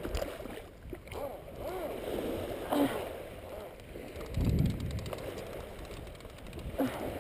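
Small surf waves lapping at the beach, with faint distant voices and a short low rumble about halfway through.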